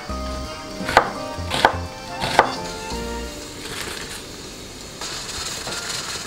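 Kitchen knife slicing an onion on a wooden cutting board: three sharp chops in the first two and a half seconds. Near the end, a pot of water bubbling at a rolling boil.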